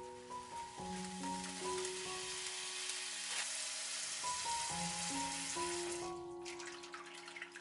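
Tap water running in a steady hiss into a glass bowl of soybean sprouts. About six seconds in the stream stops, and hands splash and swish the sprouts in the water. Gentle background music plays throughout.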